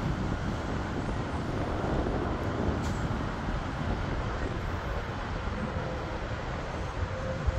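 Steady rumble of a departing jet's engines fading into the distance, mixed with road traffic. A faint steady whine comes in near the end.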